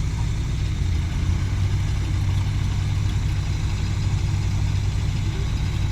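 Heavy-equipment diesel engine running steadily, a low even drone.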